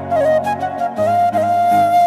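Background music led by a flute-like melody holding long notes over a soft bass line.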